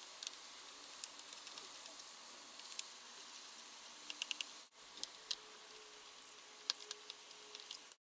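Faint, scattered small clicks and ticks over a soft hiss. A small screwdriver is working the screws around the SuperDrive optical drive inside a Mac mini.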